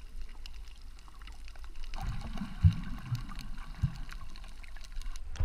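Underwater sound picked up by a camera submerged on a reef: a muffled low wash of moving water with many scattered short clicks and crackles, and a few low thumps in the middle.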